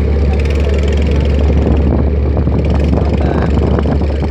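Engine running steadily with a loud low drone.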